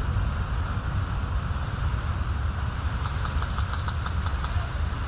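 A quick run of about ten sharp cracks from an airsoft gun firing, starting about three seconds in and lasting a second and a half, over a steady low rumble of wind and handling on a body-worn camera.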